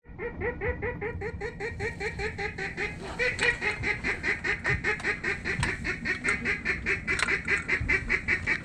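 Duck quacking in a fast, evenly spaced series, about four to five quacks a second, growing louder about three seconds in and keeping up steadily.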